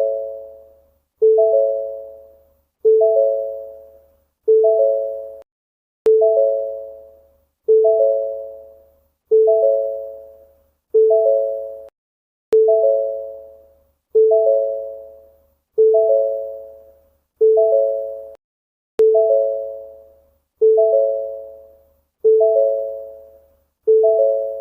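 Ford door-ajar warning chime sounding over and over, about one chime every second and a half: a soft bong of a few notes together that fades before the next, the signal that a door is open.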